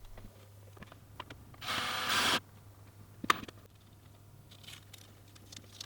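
A short burst, under a second, of a power drill driving a screw into a wooden cable clip. A single sharp click follows about a second later.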